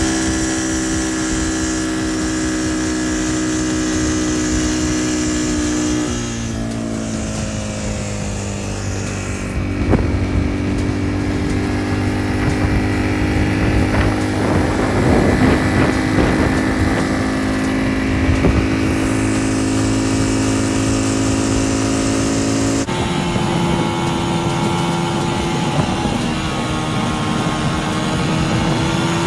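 ATV (quad bike) engine running steadily while riding along a road, its pitch stepping down about six seconds in and shifting again a few times.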